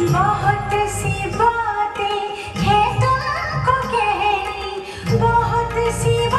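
Music: a song with a woman singing a wavering, ornamented melody over instrumental accompaniment.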